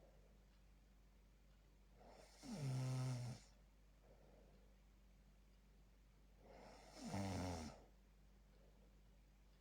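A sleeping person snoring: two snores of about a second each, about four and a half seconds apart, each followed by a softer breath out.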